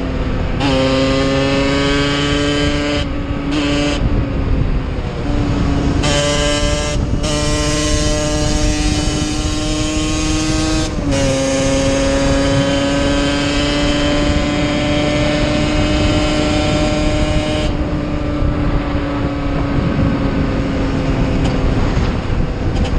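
Yamaha DT 50's small single-cylinder two-stroke engine running at high, steady revs while riding, its buzz dipping in pitch a few times as the throttle is eased or a gear is changed. A steady rush of wind noise lies under it.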